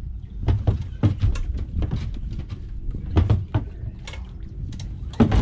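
Irregular knocks and thumps, several a second, as a Highfield inflatable dinghy is hauled up by ropes onto a boat's stern davits, with its hull and fittings bumping.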